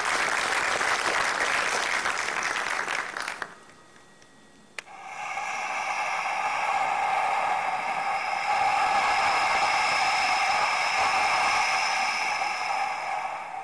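Audience applauding for about three and a half seconds. After a short lull and a click, a steady held chord of several pure tones swells in, sounds for about eight seconds, and fades out near the end.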